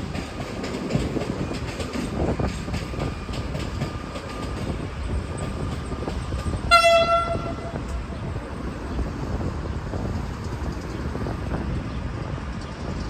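V/Line VLocity diesel railcar train running on the rails, with a steady rumble and wheel clatter. About halfway through it gives one short horn toot.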